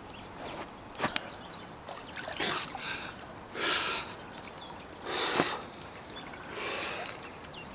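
Water splashing and sloshing in about five separate bursts as a man wading chest-deep grapples a large wels catfish with his bare hands, with a sharp knock about a second in.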